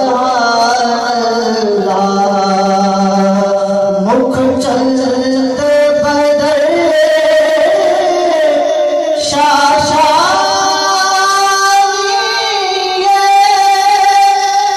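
A man's solo voice chanting a devotional naat, holding long melodic notes that slide between pitches, sung into a microphone.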